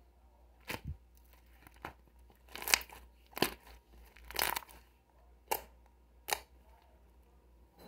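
A series of about seven short, crisp crackling and tearing sounds, unevenly spaced, the loudest and longest near the middle.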